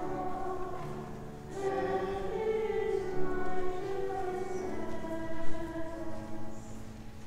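A hymn sung with organ accompaniment, held notes in slow phrases, with a new phrase starting about a second and a half in.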